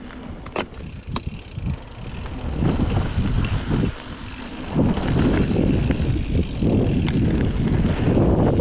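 Scott Spark mountain bike descending fast on a loose dirt trail: knobby tyres rolling over dirt and wind buffeting the action camera's microphone, a low rumble with a few sharp clicks and rattles near the start. The noise grows louder about halfway through as speed builds.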